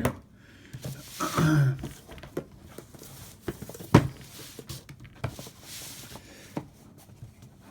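Handling of headphone packaging: rustling with scattered clicks and taps as box parts are opened and moved, one sharp click about four seconds in, and a brief low hum of a voice around a second and a half in.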